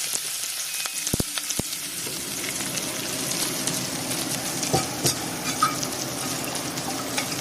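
Tadka of chopped onion, garlic, green chilli and curry leaves sizzling steadily in hot oil in a steel pan, stirred with a metal ladle that clicks against the pan a few times.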